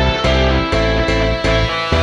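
Instrumental background music with a steady pulse of bass notes under a pitched melody.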